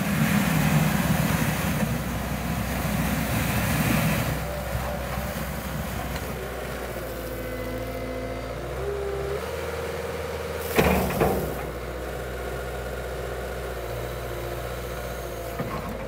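Cat 906H2 compact wheel loader's diesel engine running, louder and noisier for the first four seconds while the bucket pushes snow, then settling to a steadier run. Two sharp knocks come about eleven seconds in.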